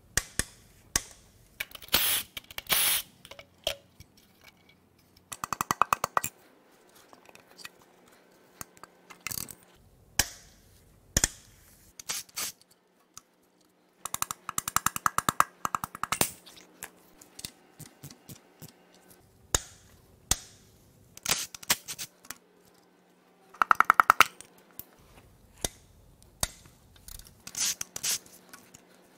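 Tools and metal parts working on a bare engine block: short bursts of rapid, ratchet-like clicking, the loudest about three-quarters of the way through, between scattered metal clanks and taps, over a faint steady hum.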